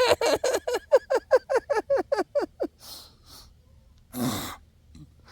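A man laughing in a long, fast run of short 'ha' pulses, each dropping in pitch, then a loud breath out a little after four seconds.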